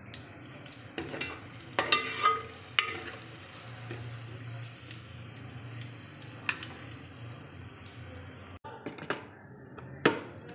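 A few sharp clinks and knocks of a steel ladle against an aluminium cooking pot as sliced onions are stirred in oil, over a low steady hum.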